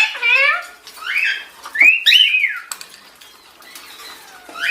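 Ringneck parakeet calling: a quick run of repeated chirps at the start, then a few rising-and-falling whistled calls, fading out over the last second or two.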